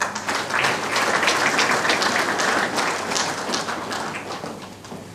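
Audience applauding, a dense patter of many hands clapping that starts suddenly and dies away near the end.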